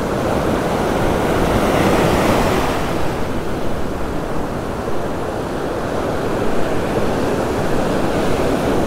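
Ocean surf breaking and washing up the beach, one wave swelling louder about two seconds in, with wind buffeting the microphone.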